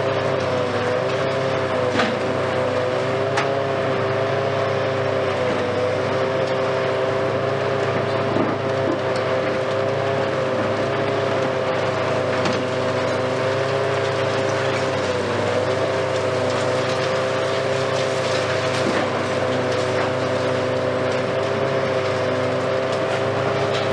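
Hitachi Kiesel KMC520 high-reach demolition excavator working: a steady engine-and-hydraulics hum whose pitch dips briefly a few times, with scattered sharp cracks of concrete breaking in the crusher jaws.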